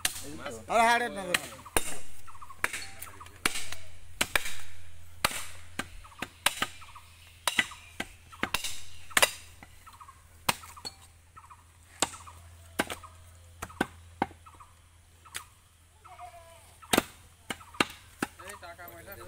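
Butcher's knife or cleaver chopping beef on a wooden chopping block: sharp, irregular knocks, one every half second to a second, some in quick pairs. A short wavering call is heard about a second in.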